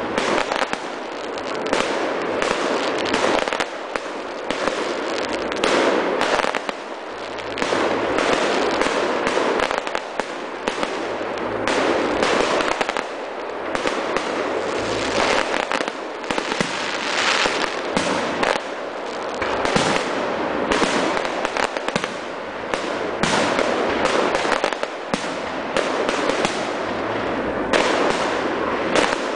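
A fireworks display: aerial shells bursting in quick succession, many sharp bangs with crackling between them and no pause.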